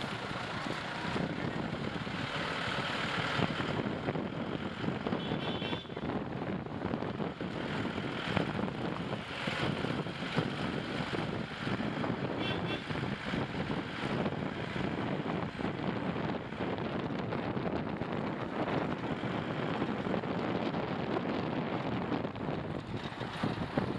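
Steady wind rush on the microphone of a camera mounted outside a moving car, mixed with the car's tyre and road noise.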